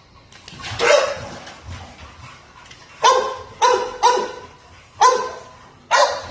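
American bulldog puppy play-barking: one drawn-out bark about a second in, then five short, sharp, high-pitched barks in quick succession from about three seconds in.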